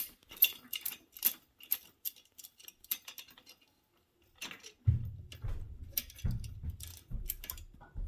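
Irregular light metal clicks and ticks of an Allen wrench being worked on the cable fitting as it is tightened. A low rumble joins about five seconds in.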